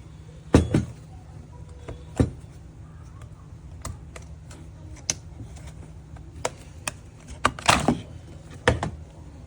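Scattered sharp plastic clicks and knocks from handling a cordless impact wrench and its battery pack while plugging the battery in, irregularly spaced, with the loudest knocks about half a second in and again near the end. The wrench's motor does not run.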